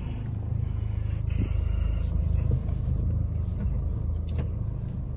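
BMW's 3.0-litre engine running steadily, a low even hum heard from inside the cabin.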